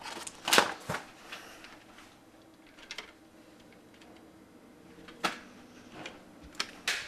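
A few scattered knocks and clicks, the loudest about half a second in, with quiet in between.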